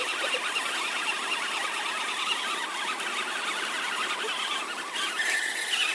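Electric motors of two RC trucks whining steadily under load as they pull against each other on a taut chain in mud.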